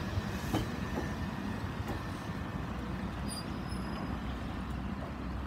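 Class 377 Electrostar electric multiple unit pulling out along the platform: a steady running noise of wheels and bogies on the track, with a few faint clicks.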